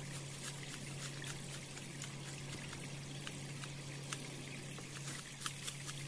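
A small mountain stream trickling steadily, with a low steady hum underneath and scattered light clicks.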